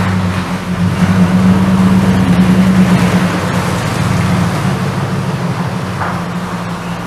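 Pickup truck's V8 engine running steadily, a little higher and louder for the first three seconds, then settling lower.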